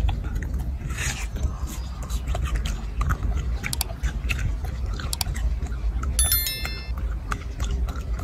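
Macaque biting into and chewing watermelon: a run of short crunching clicks over a low rumble. About six seconds in, a short bell-like chime sounds.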